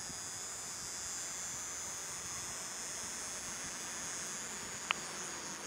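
Quiet outdoor background with a steady, high-pitched drone of insects, and one short sharp click near the end.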